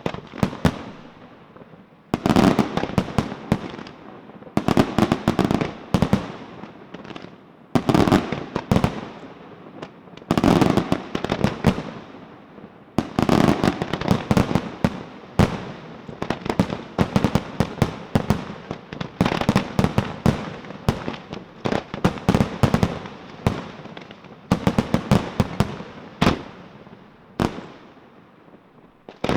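Aerial fireworks display: rapid volleys of sharp bangs and crackling reports from bursting shells, coming in dense waves every two to three seconds.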